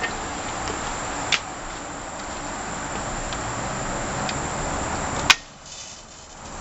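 Sears Craftsman gas-engine pressure washer running with its rebuilt pump working, the spray making a steady hiss. A sharp click about a second in and a louder one near the end, after which the sound dips briefly.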